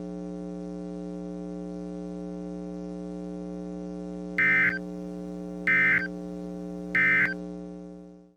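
Steady electrical hum under a weather-radio broadcast, then three short digital data bursts about a second apart: the EAS/SAME end-of-message code sent after the alert. The hum then fades out.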